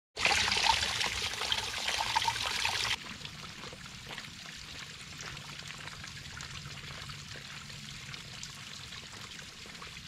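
A thin stream of water trickling and splattering down the face of a mossy boulder, a steady watery hiss. About three seconds in it cuts off abruptly to a much quieter steady hiss.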